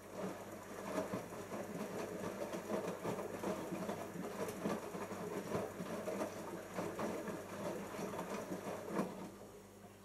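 Siemens iQ front-loading washing machine turning its drum in the final rinse: wet laundry and water tumbling and sloshing, with irregular clunks, for about nine seconds, then stopping.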